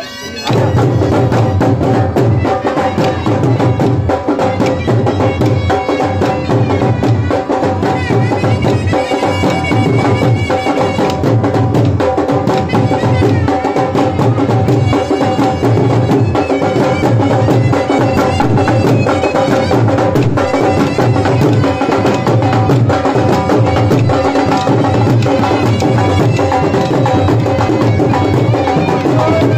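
Live folk music from a dhol beating a steady dance rhythm, with a wind instrument holding a droning melody over it and wooden sticks clacking sharply along with the beat.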